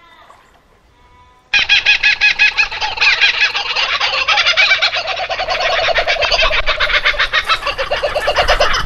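Laughing kookaburra call: a loud, continuous run of rapid cackling notes that starts suddenly about a second and a half in. Faint whistled notes of another bird come before it.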